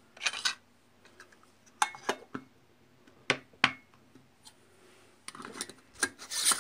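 Light clinks and taps of small hard objects being handled against glass or dishware. A few separate sharp clicks come first, then a busier run of clinking near the end.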